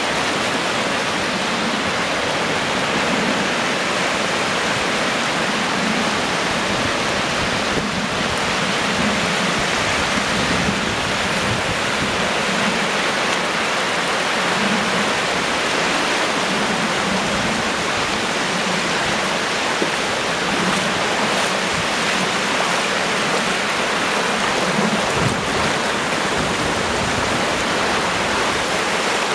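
Small sea waves breaking and washing up over flat sand at the shoreline, a steady, even hiss of surf.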